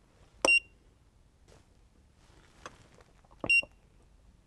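Handheld JDS2022A digital storage oscilloscope giving key-press beeps as its front-panel buttons are pressed: two short, high beeps about three seconds apart, each with a click of the key.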